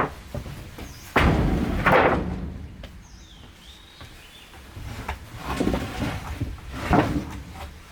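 Several heavy thuds and knocks a second or more apart, the loudest a little over a second in, with a quieter stretch in the middle.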